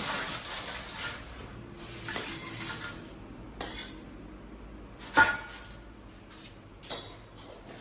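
Dishes and utensils being handled: a few seconds of rustling and scraping, then a sharp ringing clink about five seconds in and a lighter knock a couple of seconds later.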